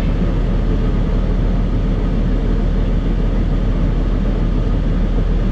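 Farm machinery engine running steadily, a low, even rumble.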